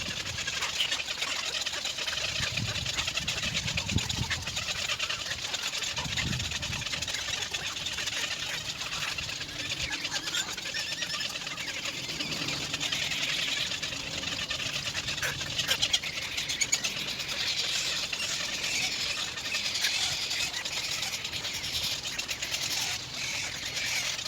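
Outdoor ambience dominated by a continuous high-pitched chirring, with a few low thuds about three, four and six seconds in.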